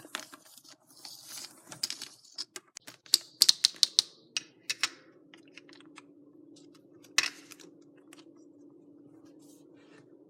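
Small plastic toys and toy props clicking and tapping as they are handled, a quick run of clicks through the first half, one louder click past the middle, then a faint steady hum.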